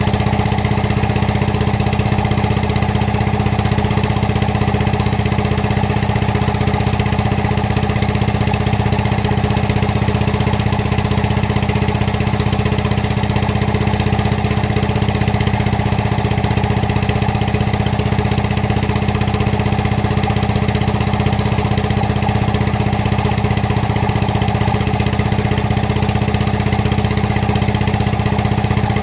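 Excavator diesel engine idling steadily, with an unchanging low hum.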